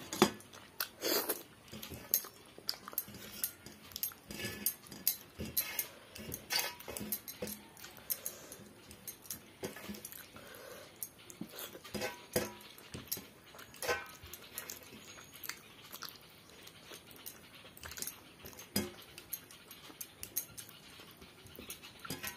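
Eating by hand: wet chewing and mouth smacks in irregular short clicks, with fingers wiping rice and gravy off a metal plate.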